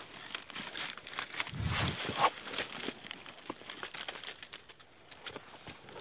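Rustling and crunching of a jacket against rock, dry leaves and gritty ground as a person shuffles and squeezes into a low gap under a boulder. A run of small scrapes and clicks, with a heavier shuffle and a sharp knock about two seconds in.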